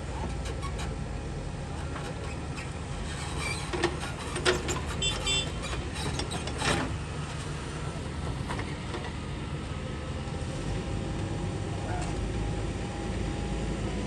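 Diesel earthmoving machinery running steadily at a work site, with a cluster of metal clanks and short squeaks about four to seven seconds in.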